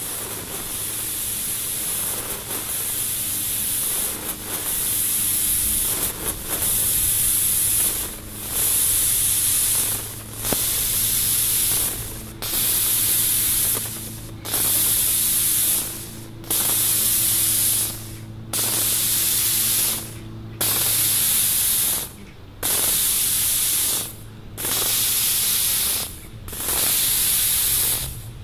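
Sound art installation giving off a loud, high hiss that swells at first and then, from about eight seconds in, pulses regularly about once every two seconds, over a faint low hum that stops about two-thirds of the way through.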